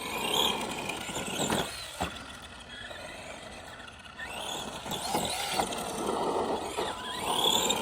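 The brushed 550 motor and drivetrain of an Arma Granite Boost two-wheel-drive RC monster truck whining as it drives, rising and falling with the throttle. A couple of knocks come about one and a half to two seconds in.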